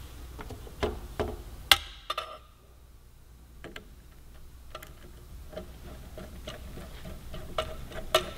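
Small clicks and ticks of a Phillips screw being fitted and turned in with a screwdriver to fasten a motorcycle turn-signal bracket. There are several sharp clicks in the first two seconds, then lighter scattered ticks, and one more sharp click near the end.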